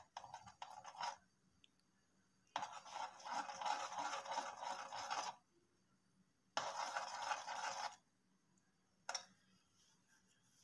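Metal slotted spatula scraping and stirring grated carrots in oil around an aluminium pot, in several spells of one to three seconds with pauses between them.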